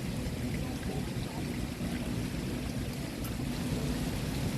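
Water running steadily from a water source: an even, continuous rush with a strong low rumble.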